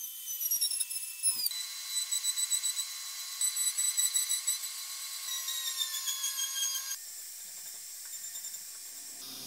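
Wood router running at high speed with a high-pitched whine while its bit cuts a rotating wooden workpiece. The whine dips in pitch in places and pulses in loudness a few times a second as the bit bites. It changes abruptly about a second and a half in, and again about seven seconds in, where it settles to a steadier, quieter whine.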